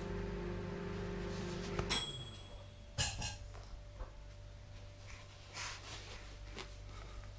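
A steady electronic tone cuts off with a click about two seconds in, followed by a few faint clicks and rustles.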